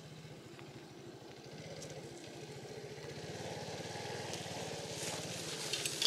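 Small motorcycle engine running at low speed as the bike approaches, growing steadily louder. Near the end dry reeds rustle and crackle under the wheels.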